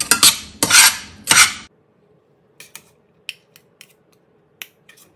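Metal spatula scraping and stirring millet fried rice in a stainless steel pan, about four quick scrapes in the first second and a half. Then it drops to quiet, with a few faint light clicks of a spoon scooping the rice from the pan.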